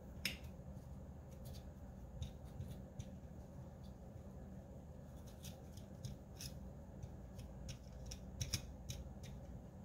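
Faint scattered clicks and scratches of a small circuit board being handled and rubbed with an alcohol prep pad to clean solder flux off its soldered back. The sharpest clicks come just after the start and in a cluster near the end.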